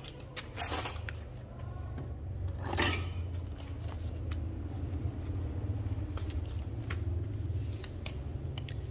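Light clicks and a couple of short rattles of hard objects being handled, over a steady low hum.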